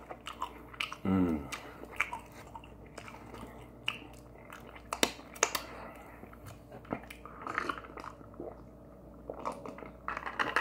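A person chewing and biting crispy fried chicken wings, with scattered sharp crunches and mouth clicks. About a second in there is a brief voiced hum that falls in pitch, the loudest sound here.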